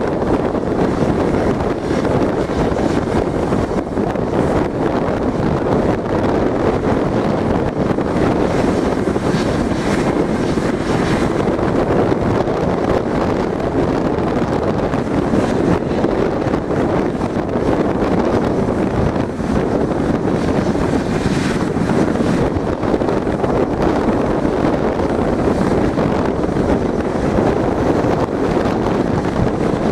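Airbus A320-232's IAE V2500 jet engines idling with a steady, unchanging noise, mixed with wind buffeting the microphone.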